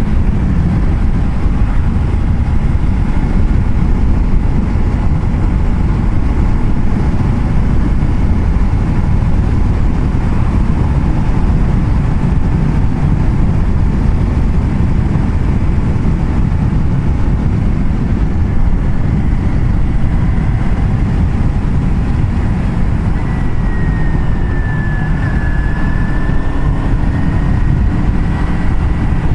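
Steady wind and road noise of a motorcycle ride at road speed on a wet road, with the engine running underneath. A faint high whine comes and goes near the end.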